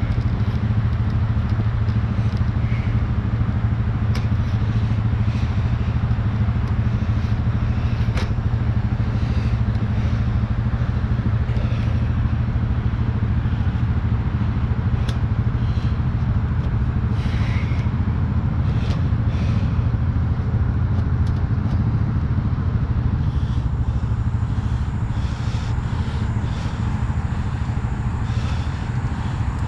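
An engine running steadily at idle, with scattered clicks and clanks over it.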